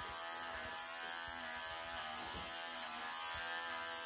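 Wahl electric pet clippers buzzing steadily as they shave through a cat's matted, pelted coat, with small swells in level as the blade works under the mats.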